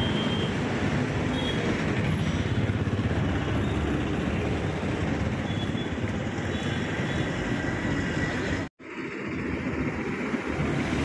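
Roadside street noise: a steady haze of passing traffic, heaviest in the low rumble, that cuts out for a moment about nine seconds in.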